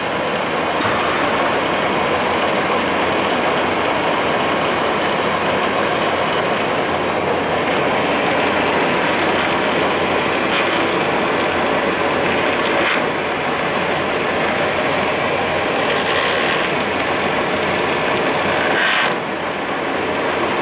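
Samstar 40 x 160 engine lathe running under power, its headstock and feed gearbox giving a steady mechanical running noise. Several times there is a brief burst of gear noise as the feed-change levers are shifted while the machine runs.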